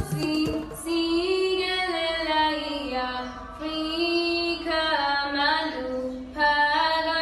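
A girl singing solo and unaccompanied, in long held notes across about three phrases, several of them sliding downward at their ends.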